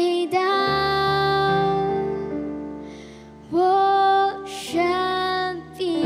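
A young girl singing a slow Mandarin song into a microphone over soft instrumental accompaniment: one long held note that fades away, then two short louder phrases.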